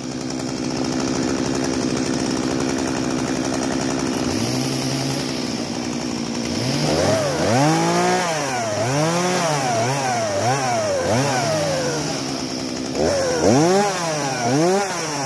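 Stihl two-stroke chainsaw running held in the air, not cutting: a steady engine note for the first half, then the throttle blipped again and again, the pitch rising and falling about once a second, with a last run of revs near the end.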